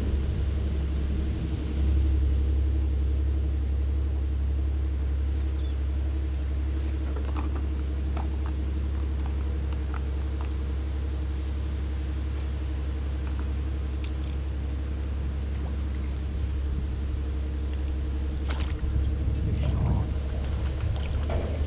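Steady low rumble of a JCB digger's diesel engine running in the distance. Near the end, a sharp click and a short splash as a carp takes bread off the surface.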